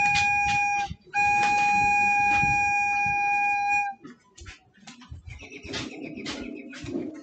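A recorder holding one long, steady note, breaking off briefly about a second in, then sounding the same note again for about three seconds before stopping at the end of the tune. Faint rustling and knocks follow as the player moves.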